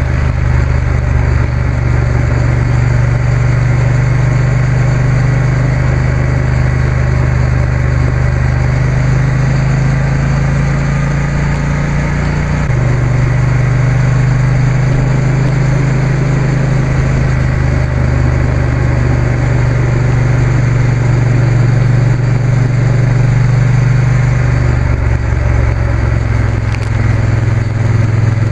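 Motorcycle engine running steadily at cruising speed on an open road, under a constant rush of wind and road noise; the engine note changes slightly about halfway through.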